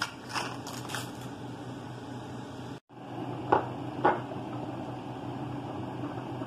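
A steady low hum throughout, with a few light clicks in the first second as dry spaghetti is fed into a pot of water. A little past halfway come two sharp knocks about half a second apart.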